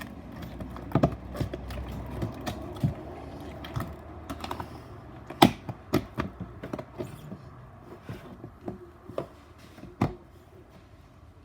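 Irregular light clicks and knocks of small objects being handled and put away, with a sharper knock about five and a half seconds in and another near the end.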